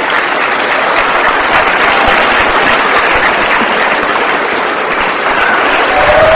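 Arena crowd applauding steadily after the skaters are announced. A held tone comes in near the end.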